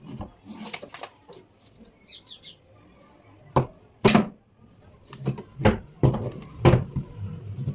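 A metal rod knocking against a wooden board: a string of about six sharp, clinking knocks, irregularly spaced, mostly in the second half.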